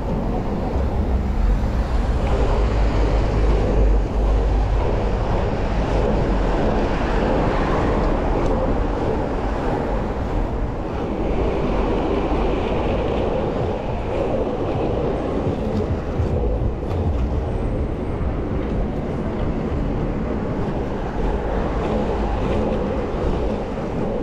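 Inline skate wheels rolling fast over asphalt: a steady, continuous rumble with no letup.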